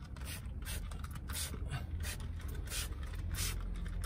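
Hand trigger spray bottle squirting cleaning solution onto car carpet in a series of short hissing sprays, about one or two a second, with the trigger clicking. The owner says the bottle's trigger is broken and does not hold up. A steady low hum runs underneath.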